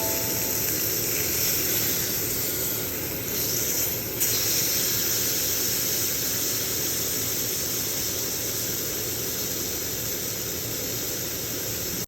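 Steady hissing noise with no tune or beat, shifting slightly about four seconds in.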